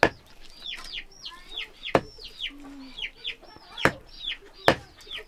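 Knife chopping pork on a wooden chopping block: four sharp knocks, irregularly spaced. Chickens cheep throughout with many short calls that fall in pitch.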